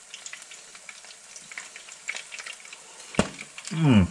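Hot oil frying battered smelt: a steady crackle of small pops and sizzle. A sharp click about three seconds in, then a short falling hum of a voice near the end.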